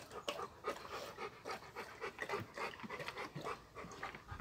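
A large Central Asian Shepherd Dog (Alabai) panting, a quick run of short breaths.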